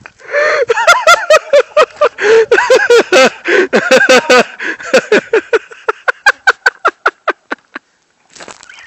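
A person laughing hard close to the microphone: a long run of high-pitched bursts that come quicker and shorter and die away near the end, followed by a brief rustle.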